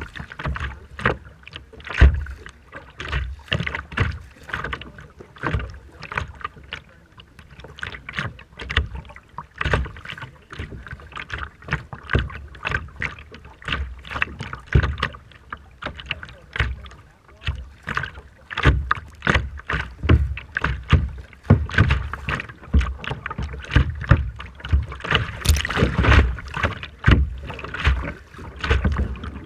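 Rough sea water splashing and slapping in quick, irregular strokes with low thumps, growing busier and louder in the last third.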